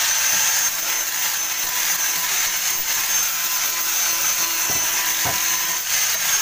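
Handheld electric sander running against a plywood panel: a steady high-pitched motor whine over the hiss of the pad on the wood, with two light knocks about five seconds in.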